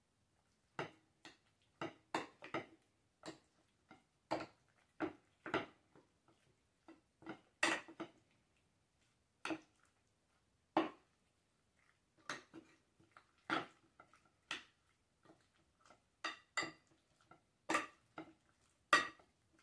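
A utensil clinking and scraping against a glass bowl while diced raw chicken is mixed with egg and cornflour. The knocks come at an uneven pace, about one or two a second.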